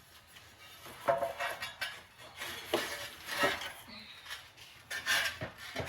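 A metal tool scraping and clinking on a hard surface in irregular strokes, some with a short ring, about a second apart.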